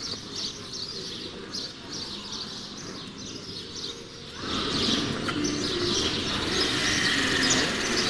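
A flock of small birds chirping busily, with many quick high chirps overlapping. About halfway through, a louder, steady noise sets in underneath, and the chirping goes on over it.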